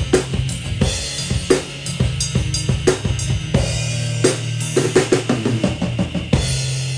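Rock song's instrumental ending: a drum kit playing busy fills of kick, snare and cymbals over a held low chord. It lands on a final crash and chord about six seconds in, which is left ringing.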